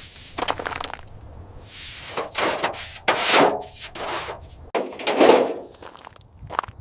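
Handling noises: scraping and rustling with a few sharp knocks and clicks, loudest about three seconds in and again about five seconds in.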